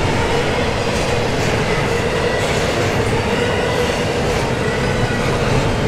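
Double-stack intermodal container cars rolling past on steel wheels: a steady, loud rumble of wheels on rail, with thin, steady whining tones from the wheels above it.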